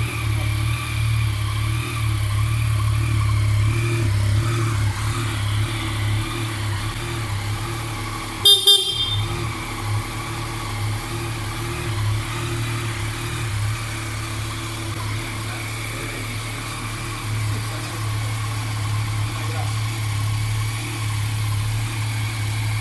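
Yamaha MT-09 SP's three-cylinder crossplane engine idling steadily. About eight and a half seconds in, a horn gives a short double beep.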